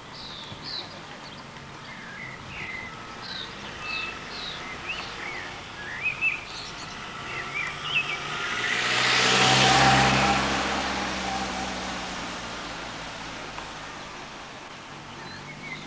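A car drives past, building to its loudest about ten seconds in and then fading away, while birds chirp throughout.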